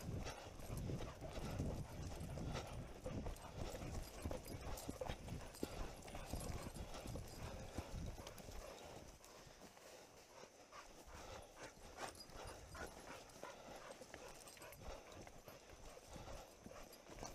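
Hurried footsteps on a woodland dirt trail, a run of rhythmic thumps with brush rustling. The thumps are heaviest in the first half and lighten after about nine seconds.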